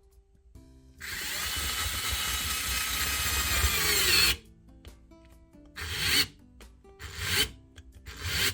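Worx 4V cordless screwdriver driving a 2.5-inch wood screw into a softwood 2x4 on its lowest torque setting. The motor runs for about three seconds, its pitch sagging as it labours, then stops. It follows with three short bursts as the screw hangs and goes no further.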